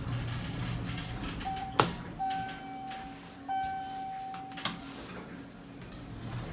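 Elevator car at a landing: a sharp click, then two electronic tones of the same pitch, each about a second long, from the car's arrival chime, and another click as the sliding doors stand open. A steady low hum runs underneath.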